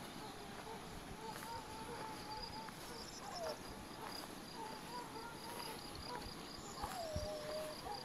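Faint outdoor ambience of crickets chirping in a steady, rapid, even pulse, with a few faint wavering calls in the background.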